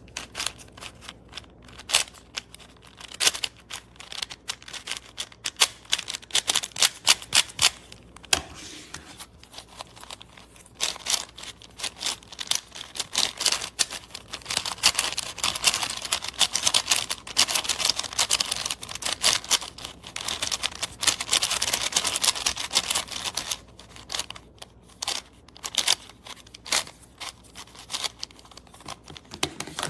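Plastic speed cube being turned by hand: a run of quick clicks and clacks from the layers, thickening into a fast, almost continuous flurry through the middle.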